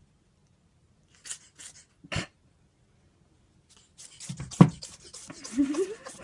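Ferret sneezing over and over: a few single sharp sneezes, then a quick run of sneezes starting about four seconds in, the loudest near the middle of that run. Near the end there is a short rising squeak.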